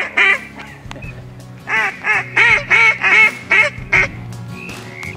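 Duck call blown close by, sounding a loud string of about seven quick hen-mallard quacks, followed near the end by a brief high whistle.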